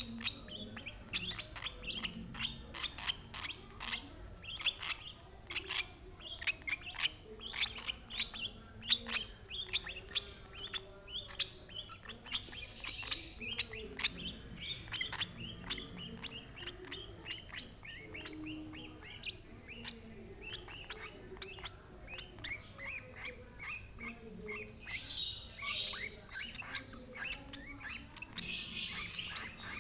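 Lovebird chick giving fast, repeated short begging chirps while being fed, with a few longer, harsher raspy calls near the middle and toward the end.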